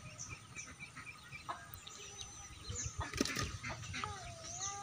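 Quiet waterside ambience: faint, quickly repeated bird chirps, a few soft clicks and knocks, and a short wavering whistle near the end.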